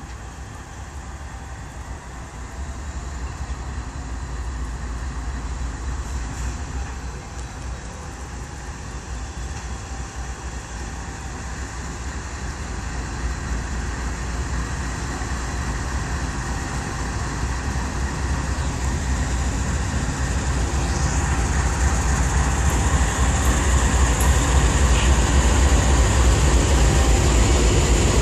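A freight train hauled by five diesel locomotives approaches and passes, the engines' low rumble and the wheel noise growing steadily louder as the lead units draw level and go by.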